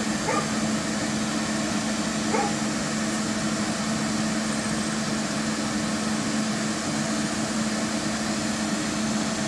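Light rail vehicle standing at the terminus, its onboard equipment giving a steady, unbroken hum with a low drone. Two brief faint calls come near the start and about two and a half seconds in.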